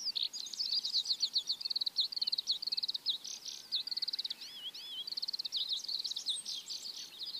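Birds singing a morning chorus: continuous high chirps and fast trills of rapidly repeated notes, with a few whistled notes sliding up and down.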